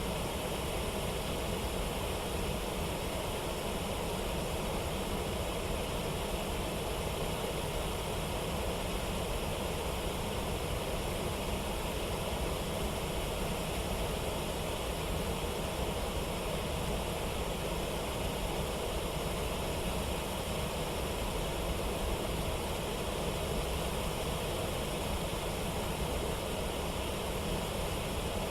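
Steady rush of water pouring over a waterfall, an even noise that holds without change.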